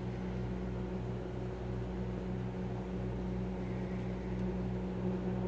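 Steady low electrical hum over a faint hiss, unchanging, with no distinct events.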